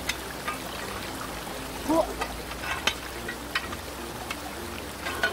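Shallow stream running over rocks and a small weir, a steady rushing hiss, with scattered short knocks and splashes among the stones.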